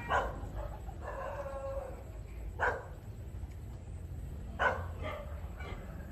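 A dog barking: three short single barks about two seconds apart.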